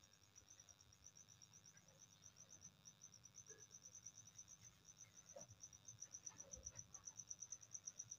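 Faint high-pitched chirping of an insect, a rapid, even pulse repeating several times a second that grows louder toward the end.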